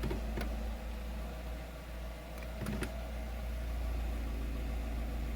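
Jeep Renegade's 1.8 flex engine idling steadily, with a few light clicks as the automatic is shifted into drive. It engages without a jolt, the failed right-side engine mount having been replaced.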